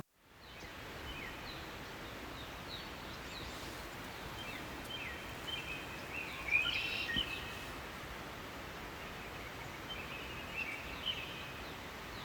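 Small birds chirping, short quick calls coming in clusters, over a steady outdoor hiss. The chirps are loudest about halfway through and again near the end.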